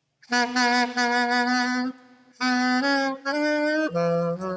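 Alto saxophone playing one note held for about a second and a half, then after a short break a few shorter notes ending on a lower one. It is played with a loose, relaxed embouchure to show the poor tone that results.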